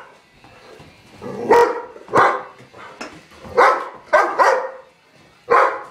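A dog barking in short, loud barks, about six of them at uneven intervals after a quiet first second. It is worked up over a balloon held above it.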